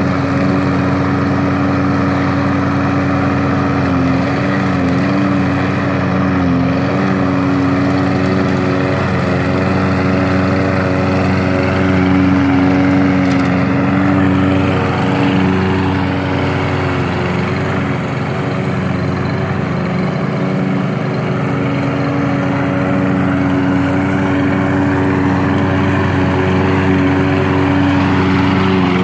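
Toro 22-inch Recycler all-wheel-drive lawn mower running steadily while mowing grass, its engine holding an even pitch.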